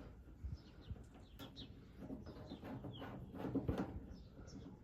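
Birds chirping: a string of short, high, falling chirps, with a few soft knocks.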